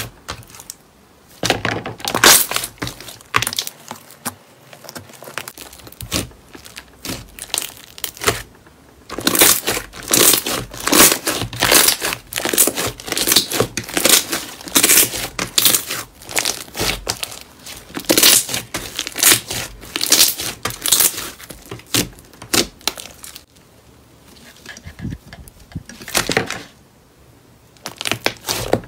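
Hands kneading and squeezing a large mass of green slime: wet squelching and crackling of trapped air. It comes in repeated bursts with brief pauses.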